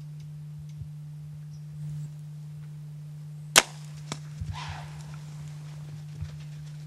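A bow being shot: one sharp, loud crack of the string releasing an arrow about three and a half seconds in, followed by a lighter click and a brief rustle. A steady low hum runs underneath.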